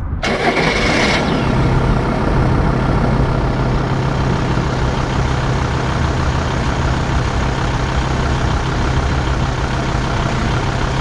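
Volkswagen LT van engine starting just after the start and then idling steadily.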